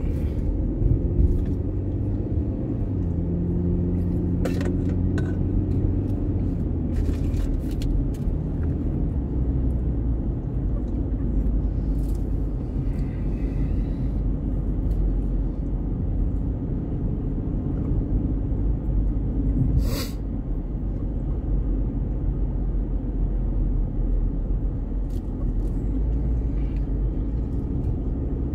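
A car driving along a road: steady low engine and road rumble, its engine note shifting during the first few seconds. A single sharp click about twenty seconds in.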